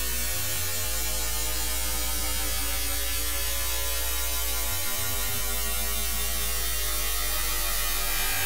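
A steady, low electrical hum and buzz with a haze of static hiss over it. The low hum breaks briefly about halfway through.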